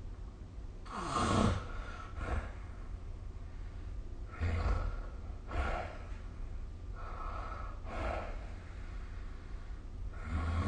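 A sleeping person snoring: noisy breaths in and out, about one pair every three seconds. The loudest breath comes about a second in.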